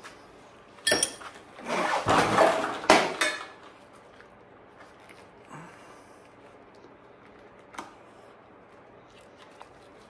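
Small metal tools or parts handled on a workbench: a sharp metallic clink with a brief ring about a second in, then a couple of seconds of rattling and scraping with another clink, and a faint click near the end.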